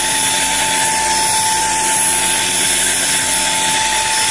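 Deerma CM800 handheld dust mite vacuum cleaner running: a loud, steady motor whir with a high whine on top and a low pulsing about twice a second.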